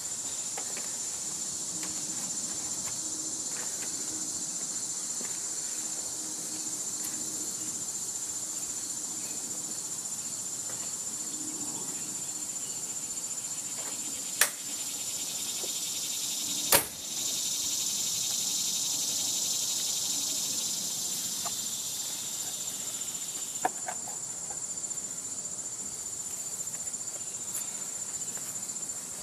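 Steady, high-pitched insect chorus, a continuous trill with a faint pulsing beneath it. Two sharp knocks cut through it about fourteen and seventeen seconds in, the second the louder, with a lighter tap later.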